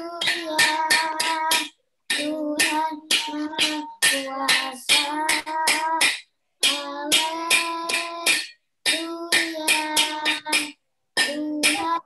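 Singing with quick, sharp metal taps on a pot lid keeping time. The video-call audio cuts out completely for a moment between phrases, about every two seconds.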